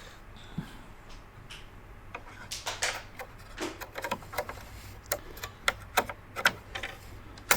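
A RAM stick being pushed into its memory slot and snapped into the retaining clips. A quick, irregular series of sharp plastic clicks and taps starts about two seconds in.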